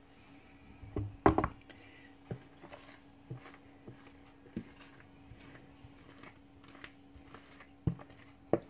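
Wooden spoon scraping pound-cake batter out of a plastic mixing bowl into a cake tin, with scattered knocks of the spoon against the bowl, loudest about a second in and twice near the end. A steady low hum runs underneath.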